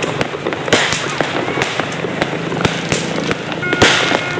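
Many fireworks and firecrackers going off at once across a city: a dense, continuous crackle of bangs and pops, with a louder burst about four seconds in.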